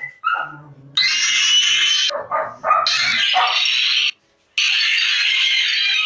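Road Runner cartoon sound effects: a short falling cry at the start, then long hissing whooshes from about a second in, again near three seconds, and again after a brief gap at about four and a half seconds.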